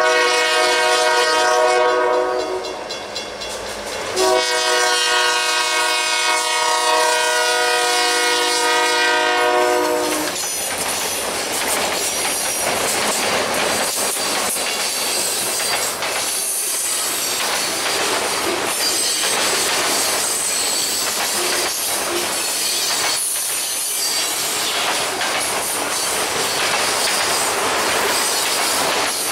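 Diesel freight locomotive's multi-chime air horn sounding two blasts, the first cut off about two seconds in, the second held about six seconds. Then the train rolls past with a steady rush of wheels on rail, clickety-clack over the joints and some high wheel squeal later on.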